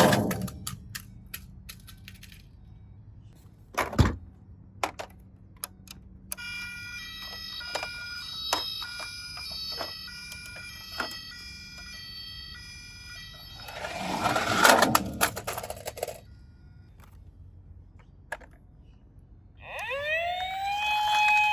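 Toy minicars clicking and rolling down a toy slide, with a sharp knock about four seconds in and a rolling rumble around fourteen seconds. A steady electronic siren-like tone plays through the middle, and a siren wail rises and holds near the end.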